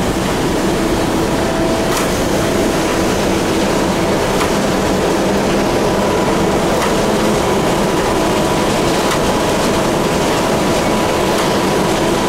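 Truck-loading belt conveyor running under load, its electric drum motor driving the belt: a steady mechanical drone with a faint even hum, and a faint tick about every two seconds.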